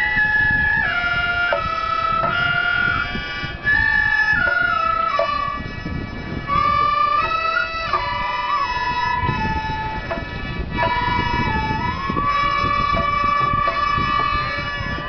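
Gagaku music on wind instruments: shō mouth organs holding a steady chord under a melody in long held notes that slide from one pitch to the next.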